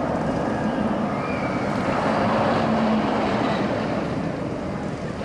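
Steady rush of wind over the microphone as harnessed riders swing through the air on a skycoaster-style swing ride. A faint drawn-out tone sits underneath, strongest about two to three seconds in.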